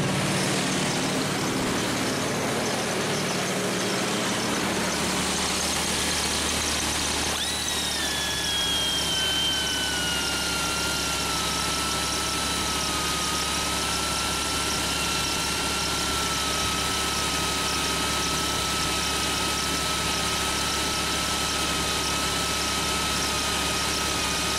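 Jeep engine held at about 2,000 RPM, driving its belt-driven onboard air compressor. About seven seconds in, an air die grinder starts: a high whine that drops in pitch, then holds steady while the grinder draws down the line pressure.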